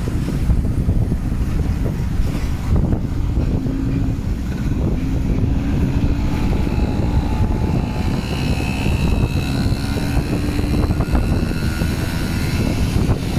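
Wind buffeting the microphone in a steady low rumble, with a faint droning tone, like a distant engine, coming and going under it.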